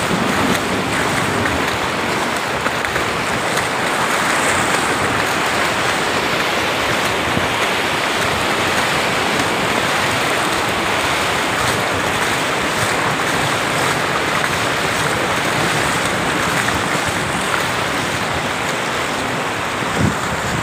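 Muddy floodwater from a downpour rushing past in a fast torrent: a loud, steady rushing noise. Near the end there is a brief low bump.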